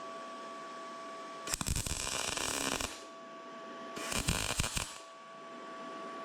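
MIG welder arc crackling and buzzing in two short bursts, about a second and a half each, as 0.6 mm wire is fed into 1.2 mm mild steel for test welds. Between the bursts there is a steady hum with two faint constant tones.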